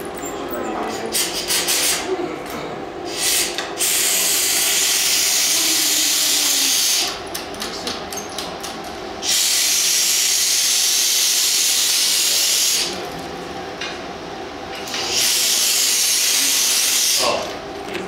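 Compressed-air blow gun hissing in three long blasts of about three seconds each, directed at hot glass to cool and set it while it is shaped. A steady hum runs underneath, with a few clicks and taps in the first seconds.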